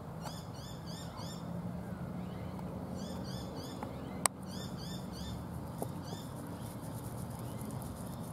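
A small bird calling in quick runs of short, high, repeated chirps, three bursts of several notes each. A single sharp click sounds a little past the middle.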